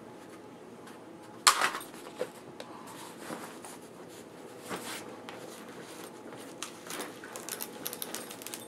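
Padded nylon rifle case being lifted and turned over: fabric rustling, with straps and plastic buckles clicking and knocking. One sharp knock about a second and a half in is the loudest sound.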